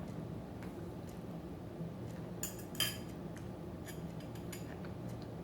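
Cutlery clicking and clinking against a dinner plate while eating: a few light scattered clicks, the loudest cluster about two and a half to three seconds in, over a steady low hum.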